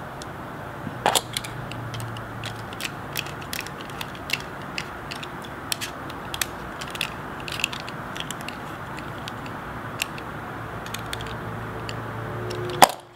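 Small metal clicks and ticks of a precision screwdriver and screws being worked into a folding knife's handle scale, irregular and a few a second, over a steady low hum. One sharper click near the end is the loudest.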